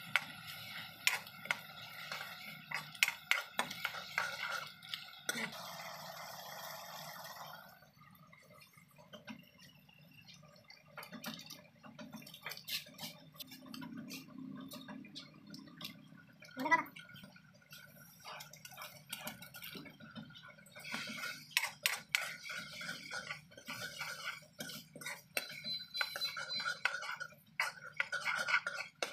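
Steel ladle scraping and clinking against a large metal kadhai as sliced onions and tomatoes are stirred in hot oil: irregular clicks and scrapes, with a pause of a few seconds about a third of the way in.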